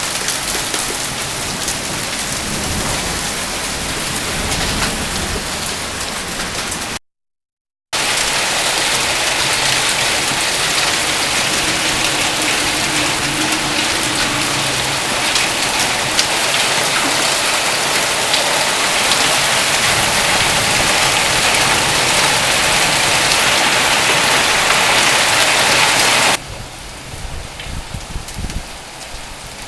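Storm downpour of heavy rain mixed with hail: a dense, loud hiss full of small hits on surfaces. It cuts out for about a second early on, comes back louder, and near the end drops to lighter rain.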